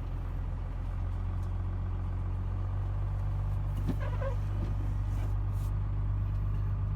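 Diesel engine of a 1994 Dodge Ram 3500 pickup, a 5.9-litre Cummins straight-six, running steadily while the truck is driven. A brief higher sound that rises in pitch cuts in about four seconds in.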